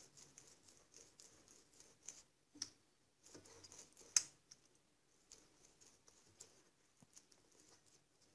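Pastry brush dabbing and stroking melted butter over the warqa-pastry top of a pastilla: faint, intermittent soft scratchy brushing with a few light clicks, the sharpest about four seconds in.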